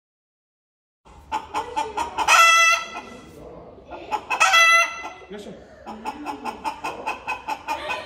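Chickens clucking in quick, rapid calls, starting after about a second of silence, with two short, loud, high calls from a rooster crowing about two and four and a half seconds in.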